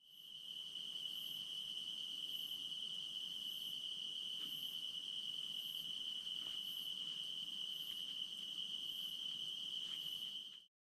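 Insect chorus: a steady high-pitched trill, with a fainter, higher pulsing about once a second. It fades in at the start and cuts off shortly before the end.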